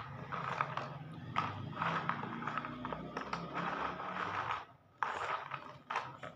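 Rustling and light scraping as small items are handled in a red plastic box, in irregular bursts with a short pause about five seconds in.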